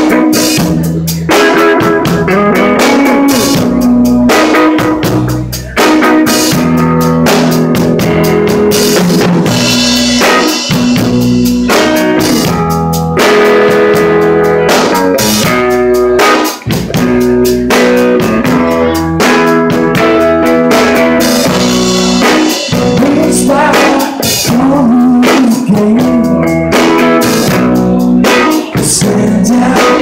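Live band playing loudly: distorted electric guitar from a Les Paul-style guitar over a full drum kit keeping a steady beat.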